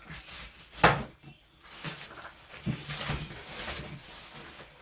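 A sharp knock about a second in, then rustling and shuffling as items and their packaging are handled.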